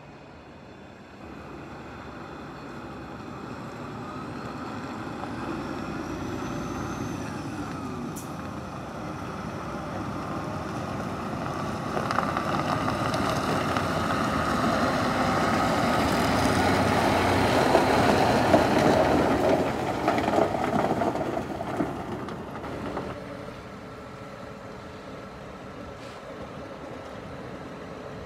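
Scania R124 8x2 crane truck's 12-litre inline-six diesel engine running as the truck drives up and past. It grows steadily louder to a peak about two-thirds of the way through, then fades.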